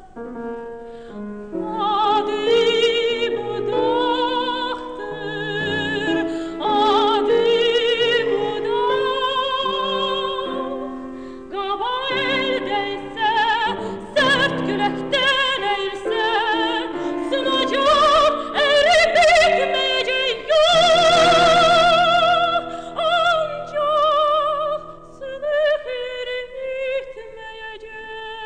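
Soprano singing an Azerbaijani art-song romance with wide vibrato, accompanied by piano. About two-thirds of the way in she holds one long high note with strong vibrato.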